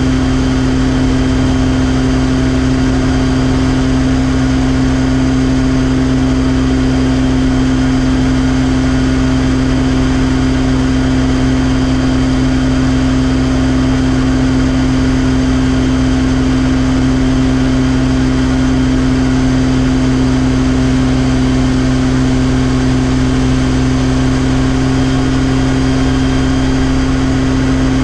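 RotorWay kit helicopter running at steady speed with its main rotor turning, heard from inside the cockpit: an even engine and rotor drone with a strong hum that holds one pitch throughout.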